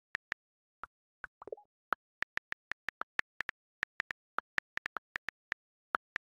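iPhone on-screen keyboard clicks as a text message is typed: quick, irregular taps about four or five a second, with one lower, slightly longer sound about a second and a half in.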